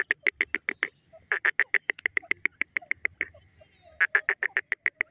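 Grey francolin calling: fast runs of short, sharp notes, about seven a second, in three runs with brief pauses between them.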